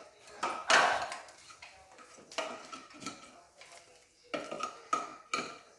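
Hard objects knocking and clinking together as they are handled, about six separate sharp clatters with a brief ring after each, the loudest about a second in.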